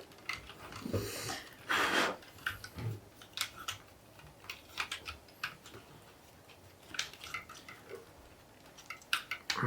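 Small hard plastic LEGO pieces clicking and clattering as they are handled and pressed together, in irregular light clicks, with a brief louder rustle about two seconds in.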